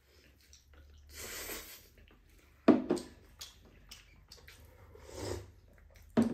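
A person eating glass noodles: slurping and chewing, with a hissing slurp about a second in and two sudden louder sounds, one near the middle and one near the end.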